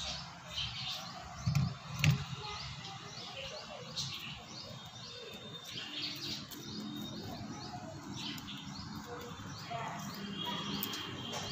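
Birds chirping repeatedly in short calls. Two dull thumps about a second and a half and two seconds in are the loudest sounds.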